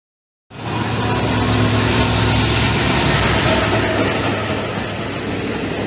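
Passenger train passing at speed behind a diesel locomotive: a steady, loud rushing noise with a thin high whine over it. It starts abruptly about half a second in.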